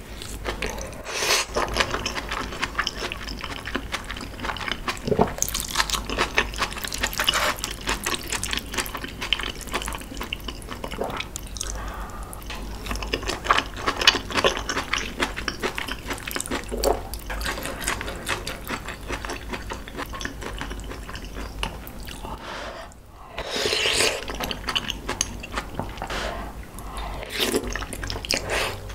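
Close-miked wet chewing and mouth sounds of a person eating saucy kimchi-tuna rice: a dense run of small clicks and smacks, with a short pause about two-thirds of the way through.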